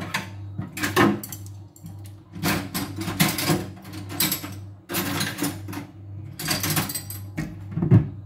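Kitchen handling noises: several bursts of clattering and scraping, the sharpest near the end, over a steady low hum.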